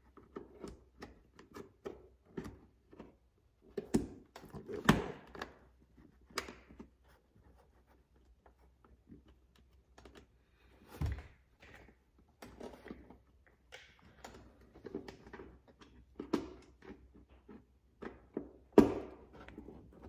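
Irregular clicks, taps and rattles of hands fitting a storage bag and its fasteners against the plastic inner door panel of a Can-Am Maverick side-by-side, with a few louder thunks about four to five seconds in, around eleven seconds, and near the end.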